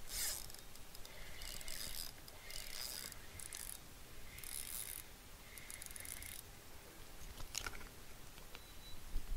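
Fishing reel being cranked in short bursts of gear whirring, the lure retrieved in pulses with brief pauses between turns. A sharp click comes about seven and a half seconds in and a thump near the end.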